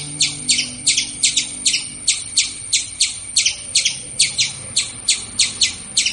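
A small bird chirping in a fast, even series of short, high, downward-sweeping chirps, about four a second.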